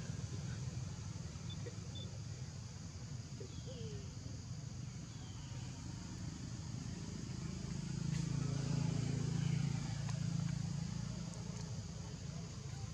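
Low, steady engine hum of a motor vehicle, swelling louder about eight seconds in and easing off again as it passes, over a constant high drone.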